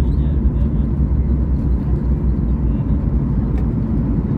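Steady low rumble inside the cabin of a Boeing 737 rolling on the ground after touchdown: engine noise and wheel rumble.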